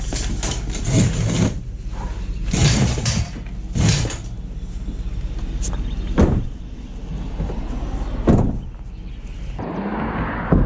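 A series of about five sharp knocks and clatters, a few seconds apart, from items being handled, over a steady low rumble.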